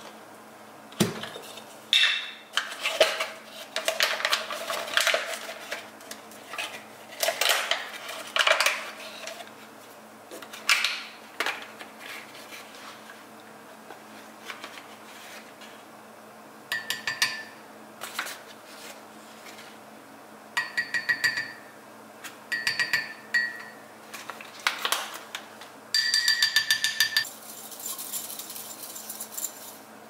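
Matcha being prepared by hand: a metal matcha tin being opened and handled with clicks and scrapes, then groups of quick taps and scrapes in a ceramic bowl that rings, ending in a fast run of strokes as dry matcha powder is whisked with a bamboo whisk in the bowl to break up lumps.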